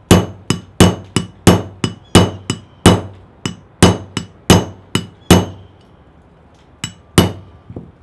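A hammer striking a steel punch, driving the trigger guard's roll pin into an AR-15 lower receiver: a steady run of sharp metallic taps, about three a second, each with a faint ring. The taps stop about five seconds in, and two more follow after a short pause.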